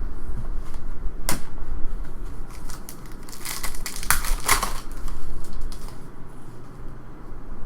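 Trading card packs being handled: a plastic foil wrapper crinkling and tearing in a cluster of rustles midway, with a sharp click about a second in.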